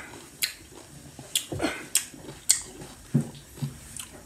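Mouth sounds of a man eating sour lime: a string of sharp wet lip smacks and sucking clicks, about one or two a second.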